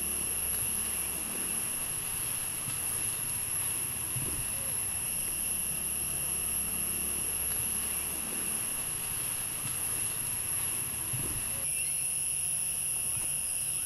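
A steady, high-pitched insect chorus, shrill and unbroken, with a fainter low rumble beneath. The low part changes a little near the end.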